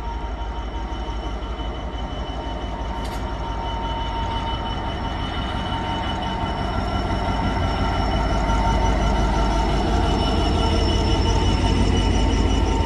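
Freight train hauled by a Class 66 diesel locomotive rolling slowly past, a steady low rumble that grows louder, with a steady high-pitched whine over it. A single sharp click about three seconds in.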